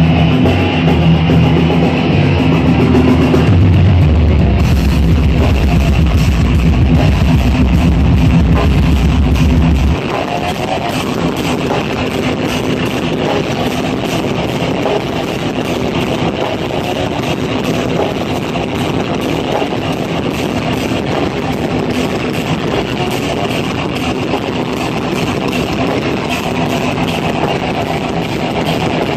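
Live rock band playing loud with electric guitars and drums, no vocals. The heavy low end drops away abruptly about ten seconds in while the guitars carry on.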